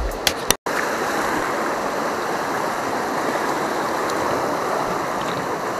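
Shallow river water rushing steadily over rocks, after a brief cut to silence about half a second in.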